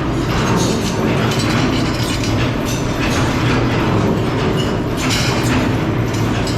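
Steady loud running machinery with a low hum and a recurring clatter about once a second.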